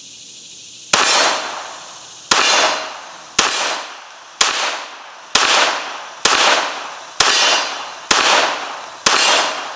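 Glock 44 .22 LR pistol fired nine times at a slow, steady pace, about one shot a second, each shot sharp with a short ringing tail. The pistol cycles every round without a malfunction from a hand-loaded 10-round magazine.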